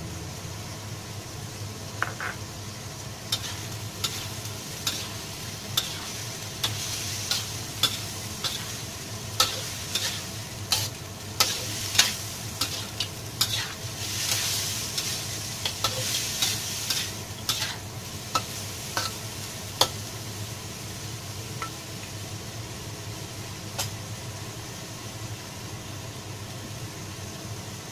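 Diced bean curd and minced pork sizzling in a wok while a spatula stirs them, with sharp irregular clinks and scrapes of the spatula against the wok that die away a few seconds before the end. A low steady hum runs underneath.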